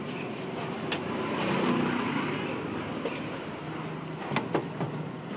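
Street background noise with a motor vehicle passing, its low hum swelling and fading in the first half, and a few sharp clicks: one about a second in and two close together near the end.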